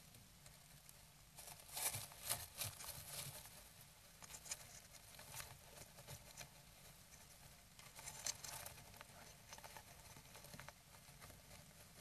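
An adult bird shifting and turning in a nest cup of dry grass inside a wooden nest box, scratching and rustling the nest material in bouts of quick scratchy clicks: the loudest about two seconds in and again around eight seconds.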